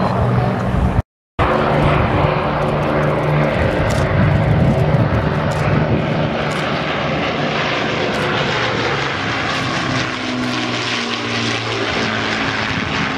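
Avro Lancaster's four Rolls-Royce Merlin piston engines droning as the bomber flies over, with the engine pitch shifting in the second half. The sound cuts out briefly about a second in.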